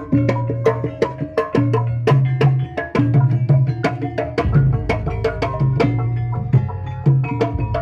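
Javanese gamelan playing kuda kepang (jaranan) music: rapid hand strokes on a kendang drum over ringing bronze bonang pot gongs and saron metallophone, with deep drum tones recurring every second or so.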